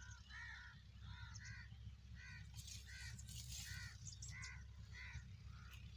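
A bird calling over and over, short harsh calls about two a second and often in pairs, faint over a low steady rumble.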